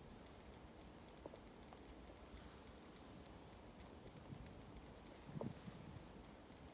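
Faint, short, high chirps of small birds, scattered through the quiet, some sliding down in pitch. A single soft crunch of a footstep in fresh snow about five seconds in.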